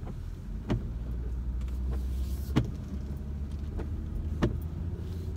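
Steady low rumble of a car driving, heard inside the cabin, with four irregularly spaced sharp knocks.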